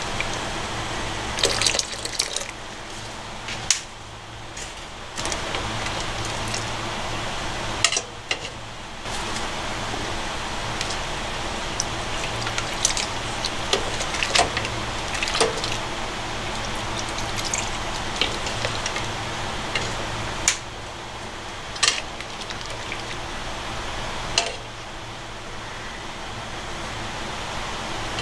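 Broth simmering in a stainless steel pot over a gas burner, a steady hiss, with a metal spoon and ladle clinking sharply against the pot now and then as seasoning is stirred in.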